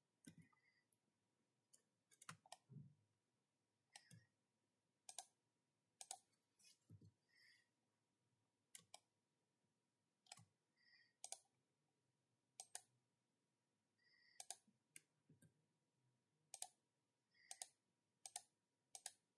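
Faint computer mouse-button clicks, irregularly spaced and often in quick pairs, with near silence between them.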